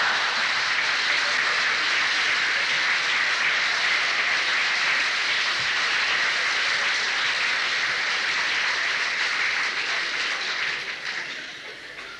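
Live audience applauding steadily after a punchline, the applause dying away near the end.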